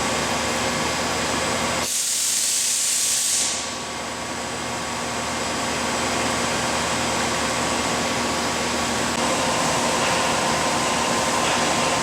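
A Lucas 30DCP-128 CNC horizontal boring mill traversing under power: a steady machine whir with a few steady hum tones. About two seconds in there is a sharp hiss of air lasting about a second and a half.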